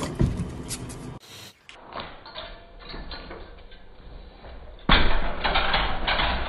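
A white metal pressure gate gives way under a climbing cat and crashes down, a sudden loud clatter near the end that keeps rattling on.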